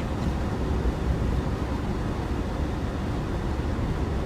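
Steady engine and road noise inside a car's cabin while driving, mostly a low rumble.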